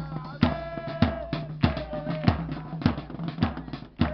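Music with drums: sharp drum strikes in a steady rhythm, about two to three a second, under long held melodic notes.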